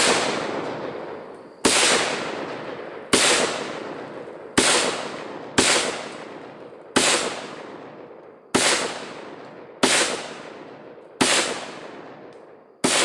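SKS semi-automatic rifle in 7.62×39mm firing a steady string of nine shots, one about every one and a half seconds. Each report is sharp and rings out in a long echo before the next.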